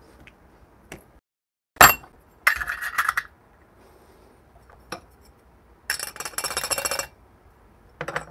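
Metal clinks and rattles of stainless espresso tools being handled: one sharp clink about two seconds in, then two spells of rapid rattling as the portafilter and its metal dosing funnel are picked up and coffee grounds go in.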